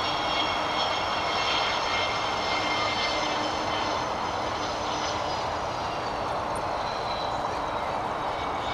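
Jet engines of a Boeing 727-200 landing: a steady rush with a high whine of the three rear-mounted turbofans as the jet flares and touches down. The whine eases a little after about five seconds.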